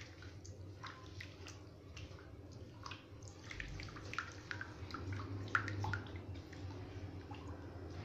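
A hand mixing a wet mixture of melted butter, oil, sugar, almonds and sesame in a glazed clay bowl: soft, irregular wet squishing with many small scattered clicks.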